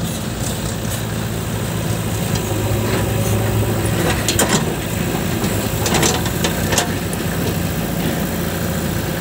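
Diesel engines of a farm tractor and a JCB 3DX backhoe loader running steadily, the tractor pulling away with a full trolley of soil. A few sharp metal clanks come about halfway through.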